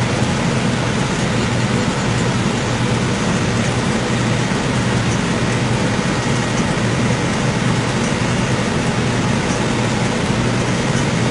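Outdoor air-conditioner condenser unit running: a steady low hum under an even rushing noise that does not change.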